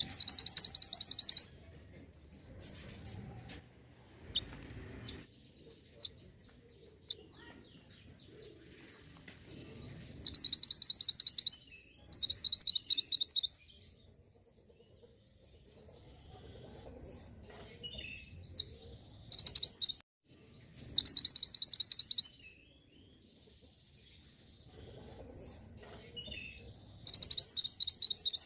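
Mantenan gunung songbird singing in bursts of a fast, high trill, each about one to two seconds long. The bursts come about six times with pauses between them.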